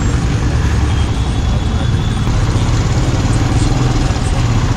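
Motorcycle engine running steadily while riding on a wet road, a constant low rumble under an even hiss of road and wind noise.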